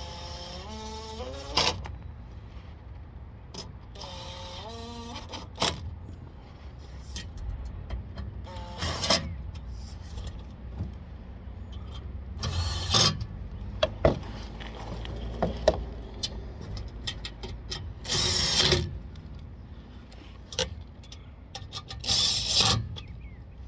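Cordless impact driver firing in about five short bursts, each under a second, driving skid-plate fasteners home with one quick hit apiece, with quieter knocks and handling of parts in between.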